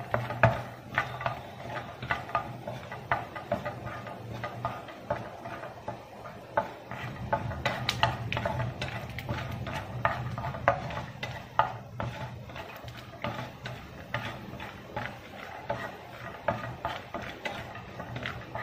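Wooden spatula stirring almonds, peanuts and cashews roasting in ghee in a non-stick frying pan: irregular light clicks, taps and scrapes of the nuts and spatula against the pan, with some crackling of the nuts, over a steady low hum.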